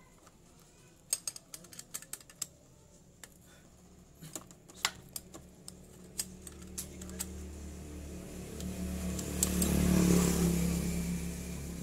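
Small metal clicks and ticks of a ring spanner and valve adjusting key working the valve adjuster screw and locknut on a scooter's cylinder head. In the second half a motor vehicle's engine swells up, loudest near the end, then eases off as it passes.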